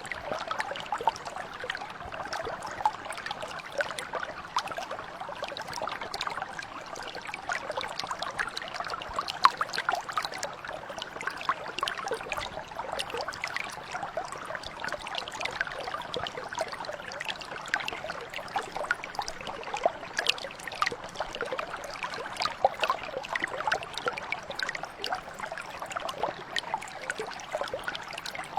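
Stream or mountain brook flowing over stones, a steady babbling with many small splashes and trickles.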